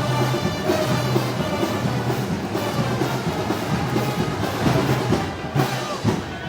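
Brass band playing festival music, with held low brass notes over steady drum beats.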